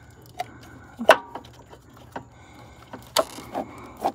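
Scattered clicks and knocks of hard plastic and metal as a hand works an ignition coil pack loose in a cramped engine bay. The loudest knock comes about a second in, with a brief rattle a little after three seconds in and another click near the end.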